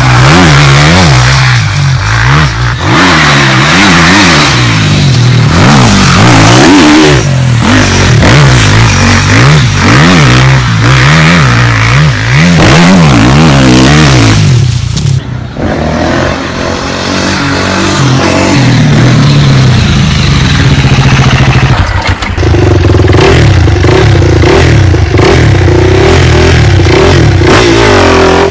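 Dirt bike engines revving hard, the pitch climbing and falling again and again with throttle and gear changes. A short break comes about halfway through, and from about two-thirds of the way in a steadier engine note takes over.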